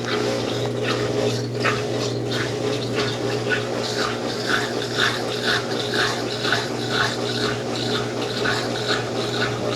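Consul Facilite 10 kg CWC10 top-loading washing machine agitating a load of bedding and towels in its wash stage. A steady motor hum runs under rhythmic swishes of water and laundry, about two a second.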